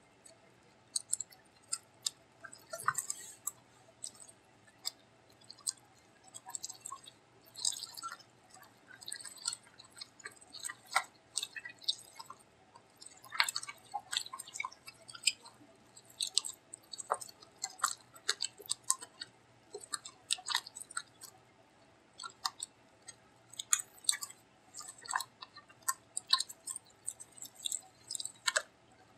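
Hands kneading and squeezing freshly mixed borax-and-white-glue slime in a plastic tub: irregular wet squelches and sticky crackling pops, several a second, as the glue sets into slime.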